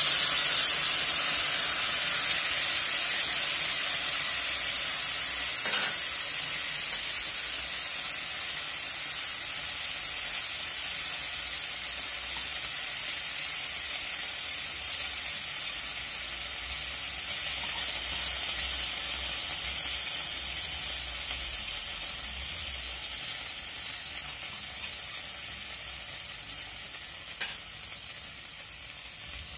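Gravy sizzling on a hot metal sizzling plate, the hiss strongest at the start and slowly dying down as the plate cools. Two short sharp clicks, about six seconds in and near the end.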